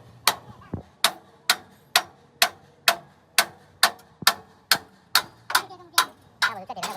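Hammer striking metal in a steady rhythm, about two sharp, ringing blows a second.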